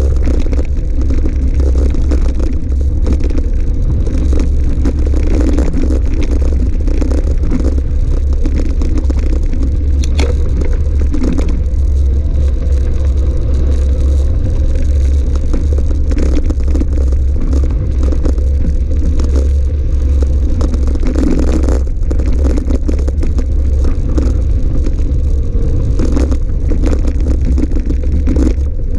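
Electric mountain bike rolling over a gravel track: a steady low rumble of wind and tyre noise, with constant rattling and scattered knocks as the bike jolts over stones.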